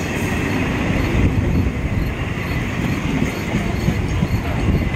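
An electric multiple unit (EMU) local train passing close by at speed: a steady, loud rumble of wheels and coaches on the track.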